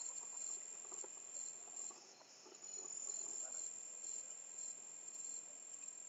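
Faint, steady high-pitched trill of insects, with a few faint scattered rustles beneath it.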